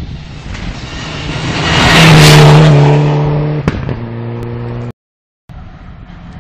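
Turbocharged four-cylinder rally car, a Mitsubishi Lancer Evo IX, passing close at speed on a gravel road: its engine note swells to a loud peak about two seconds in, then drops in pitch in two steps, with a sharp crack in between. The sound cuts out briefly near the end, then a car engine is heard fainter.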